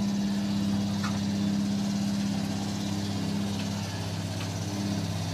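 Automatic fried-chicken machine running with a steady electric hum as its pump sprays hot oil over the chicken. The hum's upper tone weakens briefly a little before four seconds in.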